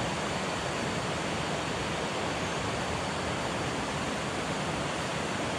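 Shallow, rocky river rushing steadily over boulders and rapids.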